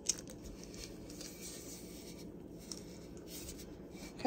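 Faint rustling and rubbing of sublimation paper as gloved hands handle and smooth a paper-wrapped tumbler, with a light tap just after the start.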